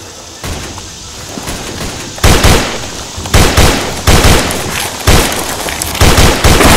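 Rifle gunfire in short bursts of several shots each. The bursts start about two seconds in and come roughly once a second after that.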